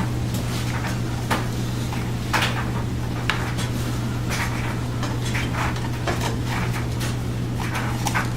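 Scattered light knocks and clinks of household items being handled, about half a dozen spread out, over a steady low hum.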